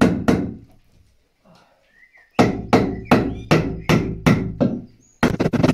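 Hammering on timber overhead as a piece of wood is knocked into place against the ceiling joists. Two blows at the start, a pause, then a steady run of blows about four a second from about two and a half seconds in. A denser, harsher noise starts just before the end.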